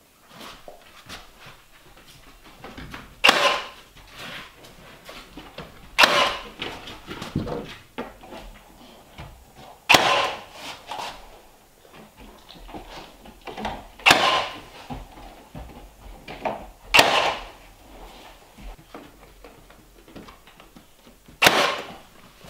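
Cordless nail gun firing nails into wooden wall trim: six sharp shots, one every three to four seconds, with quieter knocks and handling clicks between.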